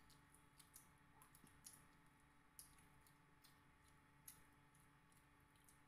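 Faint, irregular wet clicks and soft squishes of people eating with their hands: mouth smacks while chewing and fingers picking at rice and fried fish. A couple of clicks stand out, one under two seconds in and one past four seconds.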